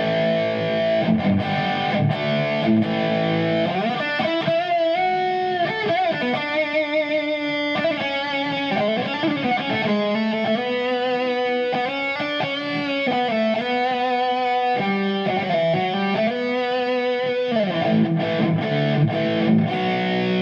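Distorted electric guitar lead playing on a Kiesel Osiris's bridge beryllium pickup, through a Kemper profiler's high-gain Plexi lead profile with a little delay. Sustained single notes with bends and vibrato.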